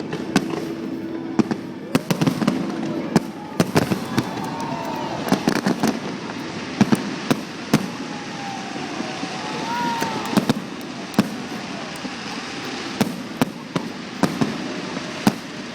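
Aerial fireworks display: many sharp bangs and cracks going off at an irregular pace over a steady crackling haze, with a couple of short whistling glides.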